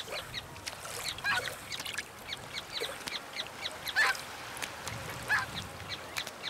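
Wetland birds calling: a dense run of short, high calls, with a few louder, lower calls about a second, four seconds and five seconds in.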